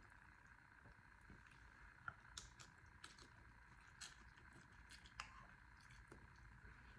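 Faint eating sounds over a steady low hiss: scattered soft clicks and squishes of chewing on noodle soup, most of them between about two and five seconds in.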